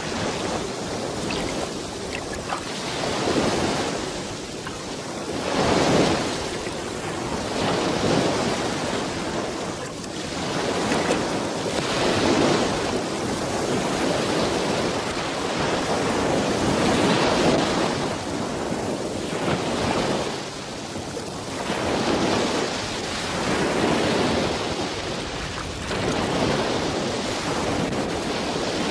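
Sea surf: small waves breaking and washing in the shallows, the wash swelling and ebbing every few seconds.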